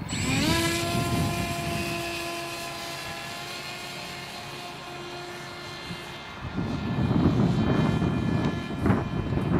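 Radio-controlled model airplane's motor and propeller spinning up sharply at the start to a steady high whine that slowly fades. From about six seconds in, strong wind buffets the microphone.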